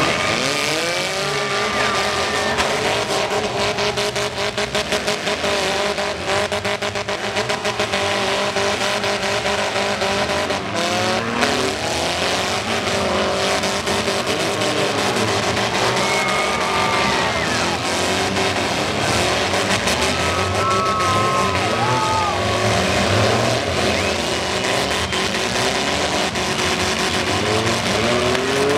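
Several four-cylinder demolition derby cars revving hard as they drive and ram one another, many engine pitches rising and falling at once over a constant din.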